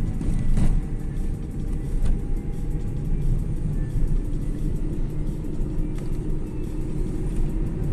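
Cabin noise of a Volkswagen Polo electric car being driven on a city road: a steady low rumble of tyres and road. A few short knocks come about half a second, two and six seconds in.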